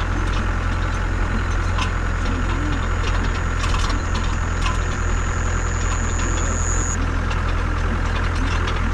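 Land Rover Defender TD5's five-cylinder turbo-diesel engine running, a steady low drone with a few light clicks.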